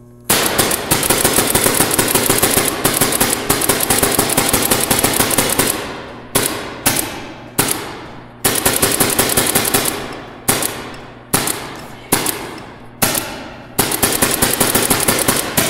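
2009 Shocktech SFL Autococker paintball marker firing long rapid strings of shots. From about six seconds in, the strings are broken by short pauses, each trailing off in the echo of a large indoor hall.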